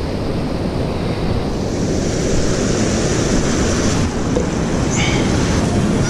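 Fast river water rushing over rocks, a steady loud rush, with wind buffeting the microphone.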